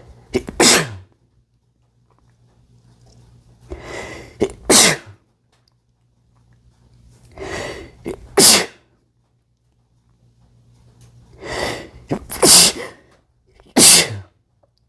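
A man sneezing five times, most sneezes preceded by a drawn-in, building breath; the last two come about a second apart.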